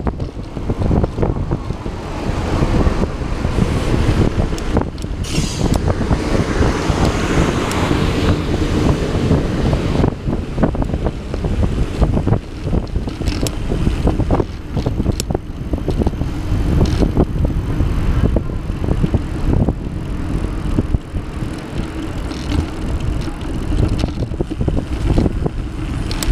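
Steady wind rumble on the microphone while riding along a paved path, with frequent small knocks and rattles from the ride over the surface, and road traffic passing alongside.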